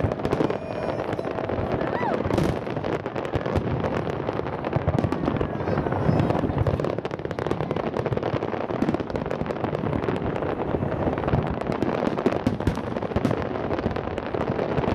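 Aerial fireworks display: many shells bursting one after another, a continuous rapid popping and crackling with no pause.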